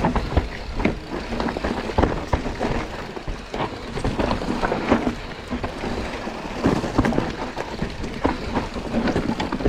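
Mountain bike ridden fast down a rough, technical trail section: tyres on dirt and rock with the bike rattling and knocking over bumps many times.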